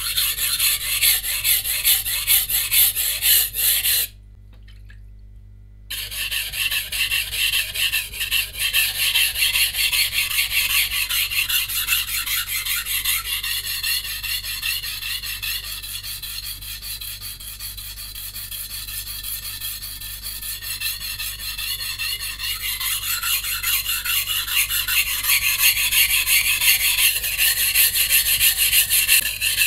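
Santoku knife with a VG-10 core steel being stroked rapidly back and forth on a coarse 180-grit whetstone, a continuous scraping rasp as the chipped edge is ground out. The strokes stop for about two seconds about four seconds in, then carry on.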